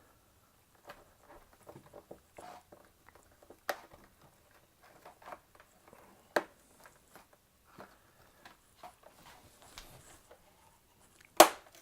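Small plastic clicks and scraping from hand tools working a scanner's image-sensor board free of its plastic carriage, where it is held by snap-in clips and heat stakes. Three sharp clicks stand out, the loudest near the end.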